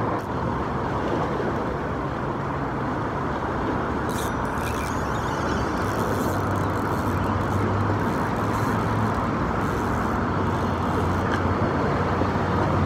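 Steady road traffic noise, with the low hum of a vehicle engine growing stronger about six seconds in and again near the end.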